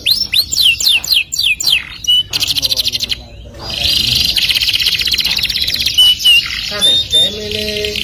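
Domestic canary singing: a run of quick falling whistled notes, then fast rolling trills, broken by a short pause about three seconds in and followed by a long rapid roll with a few whistled notes near the end.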